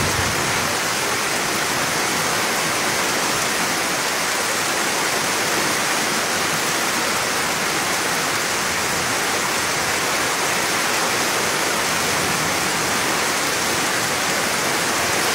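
Steady, loud rush of a muddy river in flood, mixed with heavy rain falling.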